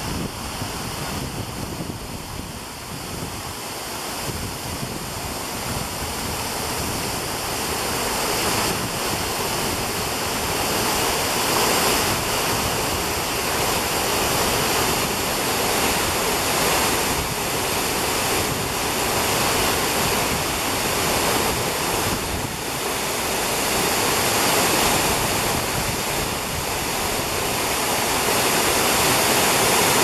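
Waterfall pouring down a rock face into a plunge pool: a steady rush of falling water, growing louder over the first several seconds.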